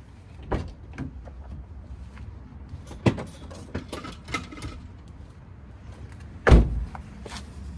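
Door and parking-brake sounds from a 2015 Chevy Spark as the parking brake is released: scattered clicks and knocks, a sharp knock about three seconds in, and a heavy thump about six and a half seconds in as the car door shuts.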